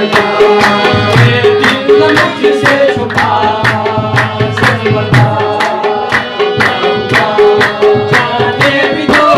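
Tabla played in a fast, steady rhythm with deep bass strokes, over the held reedy chords of a harmonium: Hindko folk-song accompaniment.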